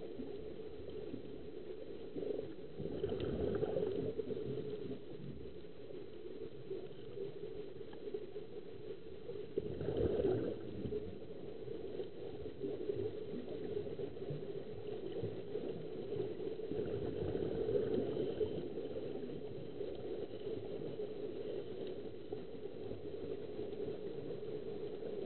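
Muffled underwater bubbling and rumble of air venting from surface-supplied diving helmets, a steady churning that swells louder three times.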